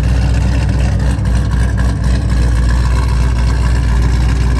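Chevrolet Camaro 2SS's 6.2-litre V8 idling with a steady deep rumble after a remote start.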